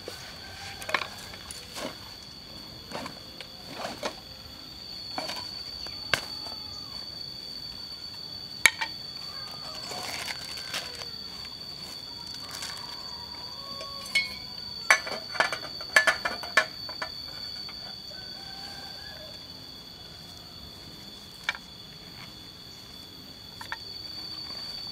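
Steady high-pitched insect drone with scattered clicks, clinks and rustling as camping gear and cookware are unpacked by hand, including a quick run of sharp clinks about two thirds of the way through.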